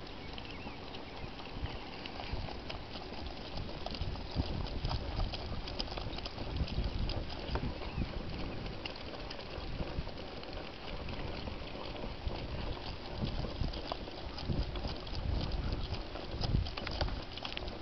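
Dog cart pulled by three running dogs, rolling along a rough road: a steady rattle and crunch of the wheels and cart with many small clicks, wind buffeting the microphone, and a few sharper knocks near the end.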